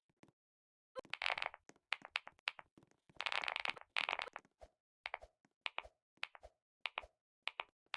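Typing on a low-profile 'chocolate' keyboard: quick runs of light key clicks with short pauses between them, starting about a second in and thinning to single keystrokes toward the end.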